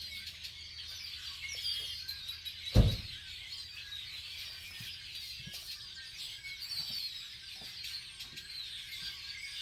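Many birds calling at once in a dense, continuous chorus of high chirps and squeaks. One sharp thump about three seconds in.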